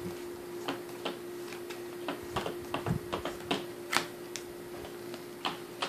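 Trading cards being handled and set down on a playmat: scattered, irregular light clicks and taps, over a faint steady hum.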